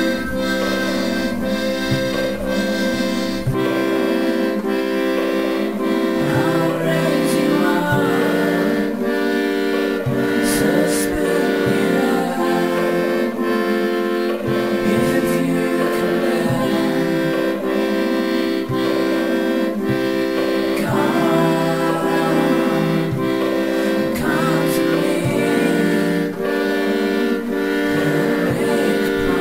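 Soundtrack music: sustained chords that change every couple of seconds over a steady beat.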